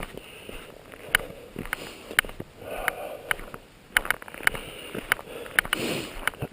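Footsteps at a steady walking pace, about two sharp crunches a second.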